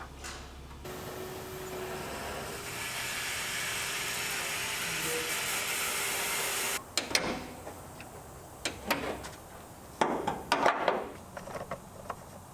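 A steady hiss lasting about six seconds that stops suddenly, followed by scattered clicks and knocks of hand tools and parts being handled during engine work.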